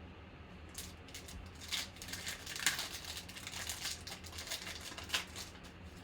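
Plastic wrapper of a trading card pack crinkling and tearing as it is opened, a dense run of rustling with sharp crackles that stops just past five seconds in.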